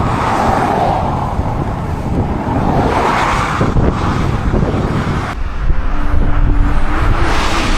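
Strong wind buffeting the microphone in gusts, a loud rushing noise with heavy low rumble.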